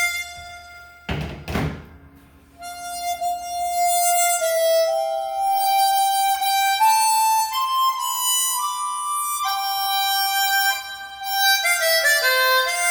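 Chromatic harmonica played through an amplified sound system with sound processing. A held note fades out, a short rushing noise comes about a second in, and then a slow melody of sustained notes rises step by step and comes back down, moving into quicker notes near the end.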